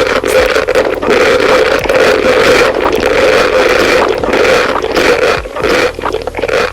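Loud close-miked eating sounds: a dense, continuous run of chewing and mouth noise.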